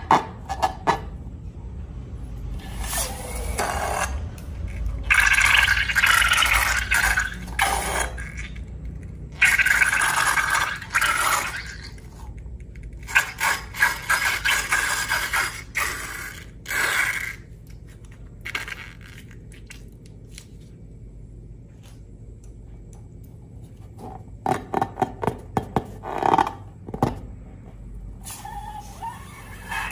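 Hands-on slime-making sounds: repeated scraping and stirring of slime in a container, coming in separate stretches, with runs of quick sticky clicks between them.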